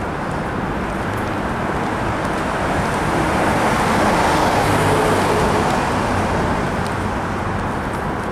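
Steady road traffic noise, swelling as a vehicle passes about halfway through and then easing off.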